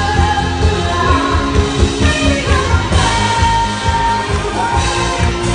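A woman singing a pop song into a microphone with a live band playing behind her over a steady beat, amplified through the venue's speakers.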